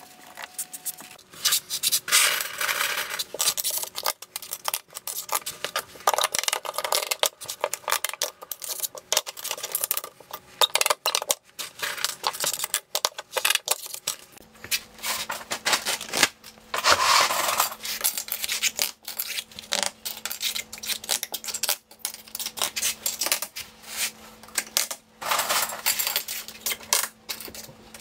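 Plastic T-Lock tile-leveling wedges and base clips clicking and clattering as they are handled and pushed into place between floor tiles: a dense, uneven run of rapid clicks.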